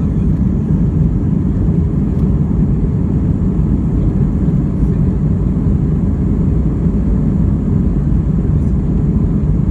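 Steady low rumble heard inside an airliner cabin as the plane taxis on the ground: engine noise and rolling noise coming through the fuselage, with no rise or change.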